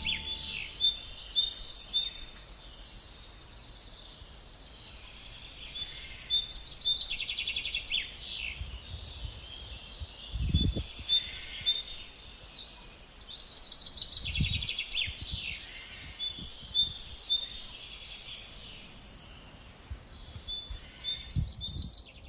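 Small birds chirping and singing in short, repeated trilled phrases with pauses between them. Two brief, dull low thumps come about ten and fourteen seconds in.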